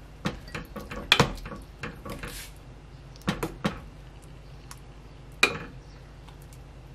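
Metal ladle clinking and scraping against a stainless steel pot as soup is stirred and ladled out: a handful of separate knocks, the loudest about a second in, a quick group of three around three and a half seconds and a sharp one about five and a half seconds in.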